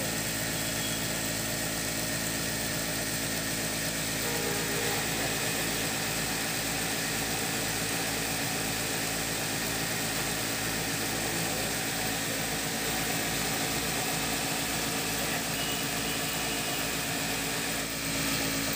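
Jaki JR8700 industrial lockstitch sewing machine running steadily, belt-driven by its table motor, as it stitches a strip of fabric: an even mechanical hum with a steady whir.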